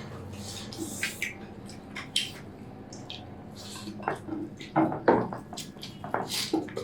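Eating from plates: dishes and cutlery clinking and scraping in irregular short bursts, with a few sharper clinks near the end.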